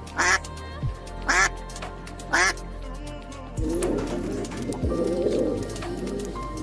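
A duck quacking three times, about a second apart, then a soft, continuous pigeon cooing from a little past halfway.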